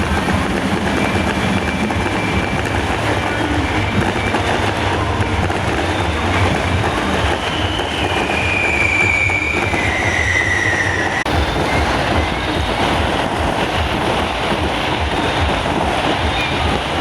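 Loud, steady mechanical rumble and clatter from procession float trucks. A high tone glides slowly downward for a few seconds midway.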